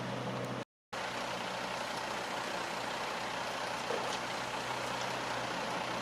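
Heavy diesel construction machinery running steadily with an even low hum. The sound cuts out completely for a moment under a second in, then resumes.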